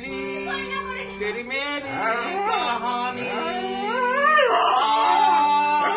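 A dog howling along to a harmonium. The harmonium holds steady notes while the howls glide up and down, climbing to a long, high howl about four seconds in.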